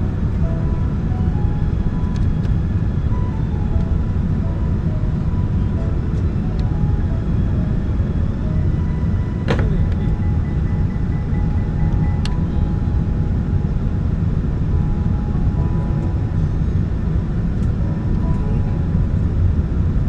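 Steady low rumble of a jet airliner, with faint music notes over it and a sharp click about halfway through.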